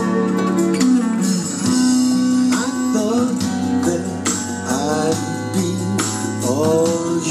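A song playing: guitar accompaniment with a sliding melody line gliding between notes over it.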